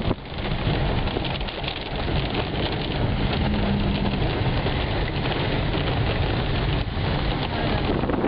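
Hail and heavy rain pelting down: a loud, steady, dense patter of countless small impacts on roofs and pavement.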